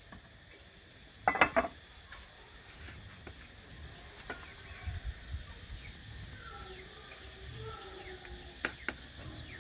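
A metal ladle clinks against an aluminium pot and plate while cooked rice is scooped out. There is a quick cluster of sharp clatter about a second and a half in, then a lighter click midway and two small clicks near the end.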